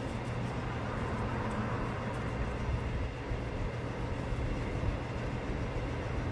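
Steady low mechanical rumble that runs evenly throughout, with a few faint light clicks over it.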